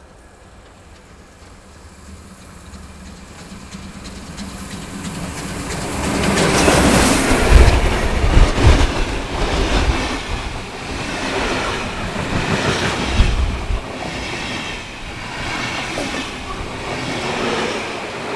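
Steam express locomotive 01 1104 hauling a train of passenger coaches, approaching and passing close by. The sound swells to its loudest about seven seconds in as the locomotive goes past. The coaches follow, their wheels clattering rhythmically over the rail joints, and the clatter fades as the last coaches pass.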